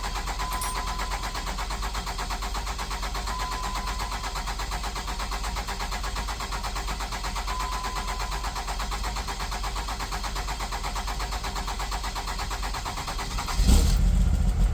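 Starter motor cranking a Cummins diesel with a steady rhythmic churn for about thirteen seconds before the engine catches and fires near the end, then runs. A long crank typical of this hard-starting engine, whose high injector return the owner takes to mean worn injectors.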